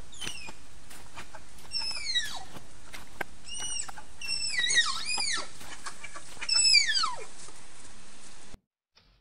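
High whistled animal calls, each sliding steeply down in pitch, several in quick succession in the middle, over a steady hiss with scattered sharp clicks. The whole soundtrack cuts off abruptly near the end, leaving only faint ticks.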